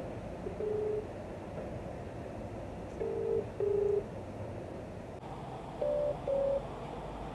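Ringback tone from a mobile phone on speakerphone while an outgoing call rings unanswered: short double beeps repeating about every three seconds.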